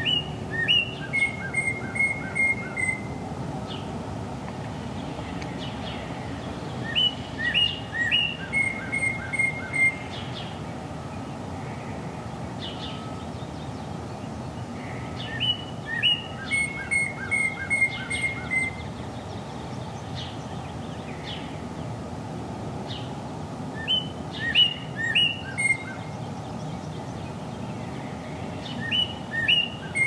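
A male northern cardinal singing five phrases spaced several seconds apart. Each phrase is two or three loud downslurred whistles followed by a quick run of repeated shorter notes, over a steady low background noise. This is the song cardinals give in spring when looking for a mate.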